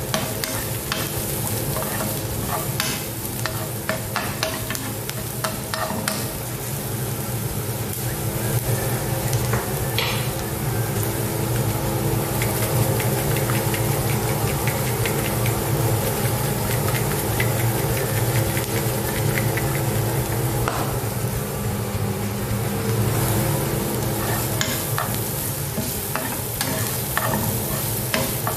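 Chopped onions sizzling in oil in a non-stick frying pan, stirred and scraped with a spatula, with frequent short scrapes and taps. A steady low hum runs underneath.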